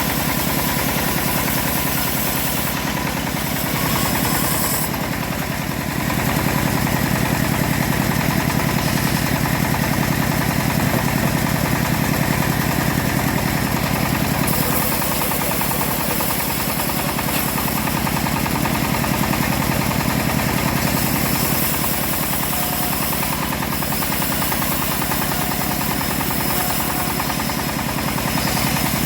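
Engine of a homemade band sawmill running steadily with a fast, even rhythm while the mill saws a teak log. The sound dips and changes briefly about five seconds in, and shifts again about halfway through.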